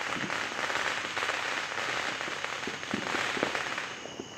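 Fireworks crackling: a dense, rapid run of many small pops that eases off a little before the end.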